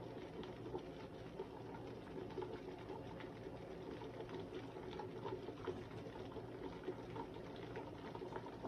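Pot of red pea soup bubbling at a boil, with many small pops and blips, over a steady low hum.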